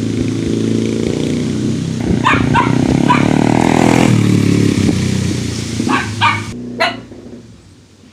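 Yamaha TT-R90 dirt bike's small four-stroke single engine running steadily, then shutting off about six and a half seconds in. A dog barks several times over it, in two clusters.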